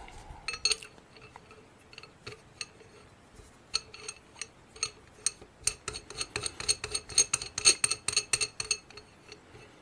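Light metallic clicks and ticks from steel shim washers and a flash suppressor being threaded by hand onto an AR-15 barrel's half-inch muzzle threads. The clicks are scattered at first, then come quicker and closer together from about halfway through until shortly before the end.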